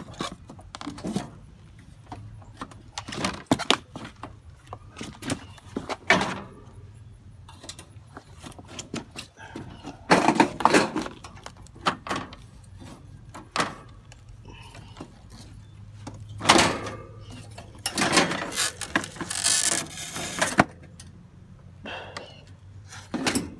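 Knocks, clatter and scraping of a window air conditioner's cover being worked loose and lifted off, in scattered bursts, the loudest about ten, sixteen and nineteen seconds in.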